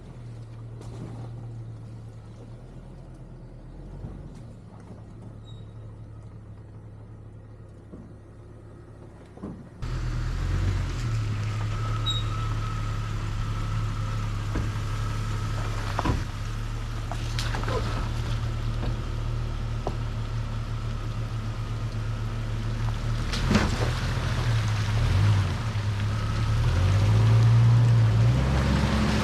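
A 1999 Jeep Cherokee XJ's engine running steadily while driving, heard with tyre and road noise. About 10 seconds in the sound jumps louder and noisier, and the engine note shifts near the end.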